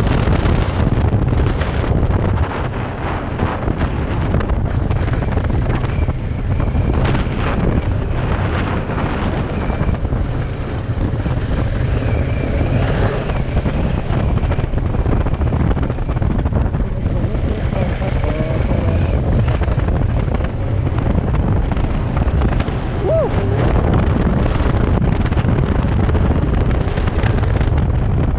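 Kawasaki Versys 650 parallel-twin engine running steadily under way on a gravel road, mixed with heavy wind noise buffeting the microphone.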